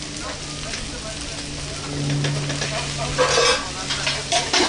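Food sizzling and frying on a hot griddle, with a steady low hum underneath. About three seconds in there is a brief louder rasping noise, and a few sharp knocks near the end.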